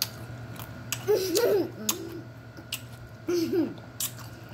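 A young girl's voice making short, playful hooting sounds twice, the pitch sliding up and down, mixed with giggling. A few sharp clicks fall in between.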